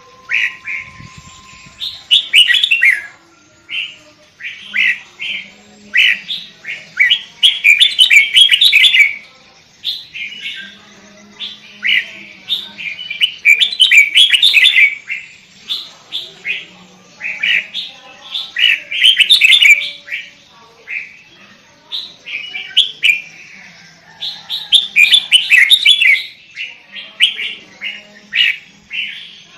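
Sooty-headed bulbul (kutilang) singing loudly and continuously: quick runs of short, bright notes in phrases of a second or two, repeated with brief pauses.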